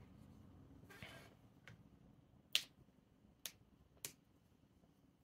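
About five short, sharp clicks at irregular intervals, the loudest about two and a half seconds in, over a faint low hum.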